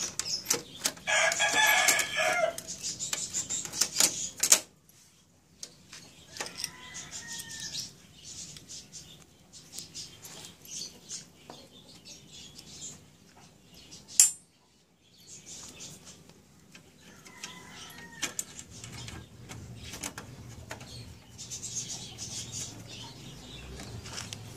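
Clicks and knocks from the laser printer's opened chassis and formatter board being handled, with two sharp, loud clicks about four and a half and fourteen seconds in. A bird calls clearly near the start and faintly twice more later.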